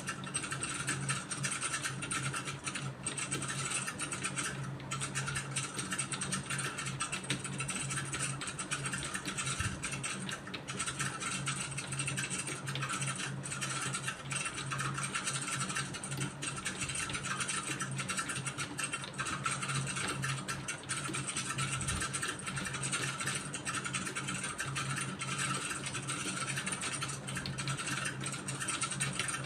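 Computer keyboard keys clicking in a continuous, rapid stream of typing, over a steady low hum.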